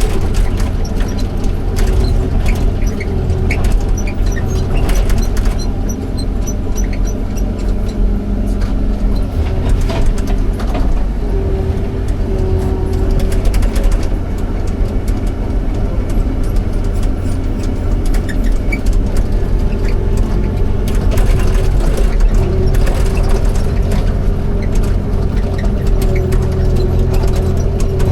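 Excavator's diesel engine running steadily, with a held whine over the low rumble and scattered sharp knocks and clanks.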